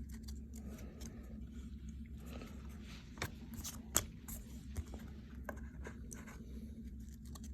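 Trading cards being handled and slid past one another: soft scraping and rustling with a few sharp clicks, over a steady low hum.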